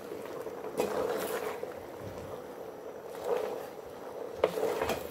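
Pork and bok choy stir-fry sizzling and bubbling in its juices in a stainless steel pot. A wooden spatula stirs and scrapes against the pot about three times, near the start, about three seconds in and near the end.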